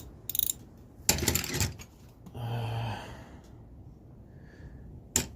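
Metal hand tools (sockets, extensions, ratchets) clinking and rattling against each other as they are picked up and handled: a quick run of clicks at the start, a louder clatter about a second in, and a single sharp click near the end. A brief low hum comes about halfway through.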